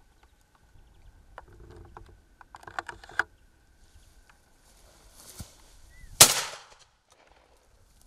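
A single shotgun shot about six seconds in, a sharp crack with a short fading tail. A few sharp clicks come about three seconds in.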